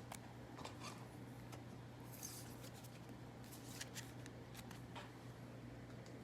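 Faint rustling and light clicks of trading cards being handled and sorted by hand, over a steady low hum.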